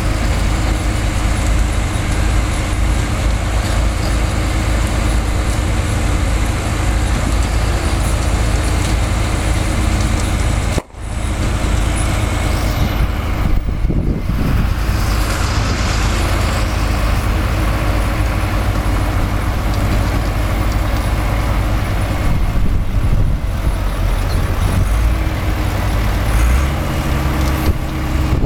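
Heavy construction machinery running steadily, the diesel engine of a tracked drilling rig and other site plant. The sound cuts out for an instant about eleven seconds in, and the engine note shifts near the end.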